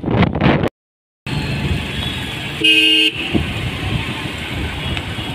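Wind buffeting the microphone while riding, then after a brief cut, road traffic noise with a single vehicle horn honk lasting about half a second, a little under three seconds in.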